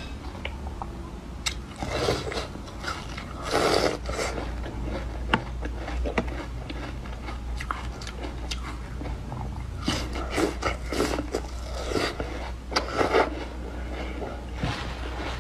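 Biting and chewing a block of frozen milk ice: crisp crunches and cracks that come in several short bursts, the loudest about four seconds in and again near the end.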